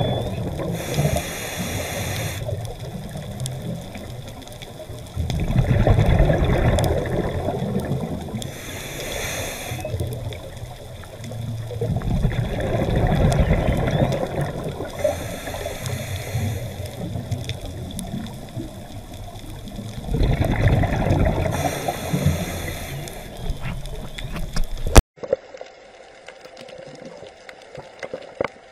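Scuba diver breathing through a regulator underwater: slow, repeating cycles of a hissing inhale and a loud bubbling rush of exhaled air, roughly every seven seconds. Near the end it cuts abruptly to much quieter underwater sound with faint scattered clicks.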